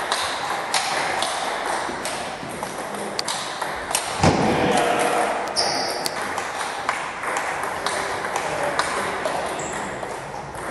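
Table tennis ball clicking off rackets and the table in irregular back-and-forth exchanges, with a gap between points and a single louder thump about four seconds in.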